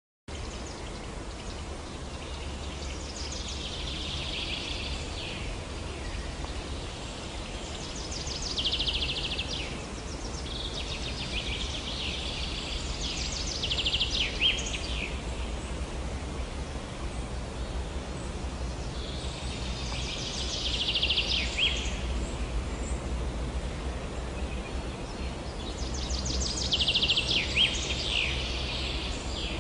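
A small songbird sings about five separate phrases, each two to three seconds long: a run of rapid notes ending in quick falling slurs. A steady low rumble runs underneath.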